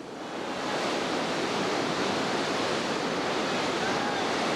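Steady rushing roar of Class 5 whitewater pouring through a river rapid, building up over the first second and then holding even.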